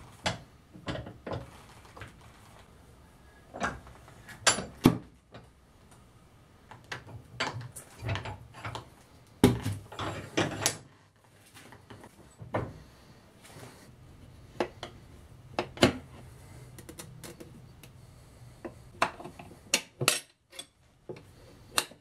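Steel tyre levers clinking and knocking against an aluminium motorcycle rim at irregular intervals, as a tyre is pried off by hand.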